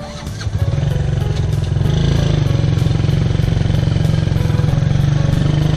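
Motorcycle engine running as the bike is ridden. It gets louder about half a second in and again near two seconds, then runs steadily.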